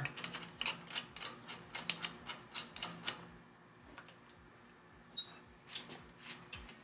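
Faint, irregular small metallic clicks and ticks as screws are threaded by hand into the 1/2-13 tapped holes in the back of a milling-machine vise. They pause about three seconds in, with one sharper click about five seconds in, then a few more clicks near the end.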